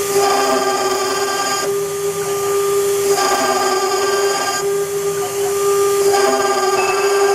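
CNC router spindle whining at a steady pitch while the bit engraves copper. A harsher, higher cutting noise swells and drops back about every one and a half seconds.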